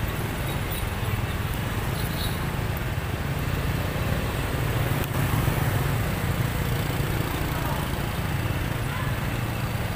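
Street traffic noise with motorbikes going by, over a steady low rumble.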